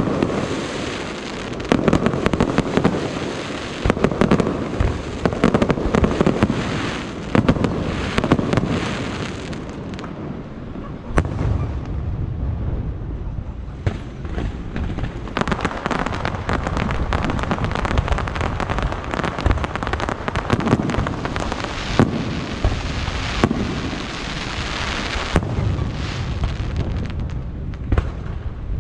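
Fireworks display: aerial shells bursting in repeated sharp booms over dense crackling. The bursts thin out about ten seconds in, then come back as a long stretch of steady crackle with scattered booms.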